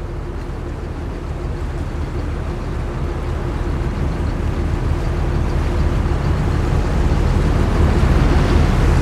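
Tugboat's diesel engine running steadily: a low rumble with a faint steady hum, growing gradually louder.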